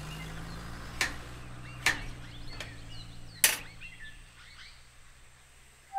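Small birds chirping over a low steady hum that fades away, broken by four sharp clicks at irregular spacing of about a second.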